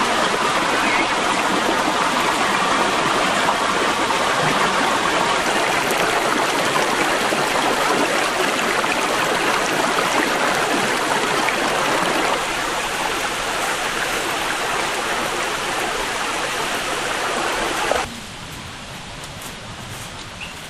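Steady rushing of a waterfall. It drops a little in level about twelve seconds in, then abruptly becomes much quieter near the end.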